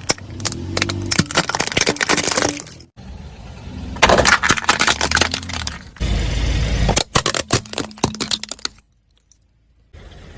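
A car's tyre rolling over and crushing crunchy objects: bursts of dense cracking and crunching over a low engine hum. The bursts come in several separate takes, and there is a short near-silent gap near the end.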